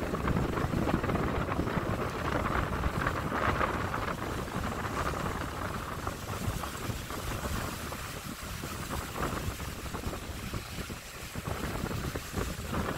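Wind rushing over the microphone at an open car window, over the low rumble of the car driving along the road.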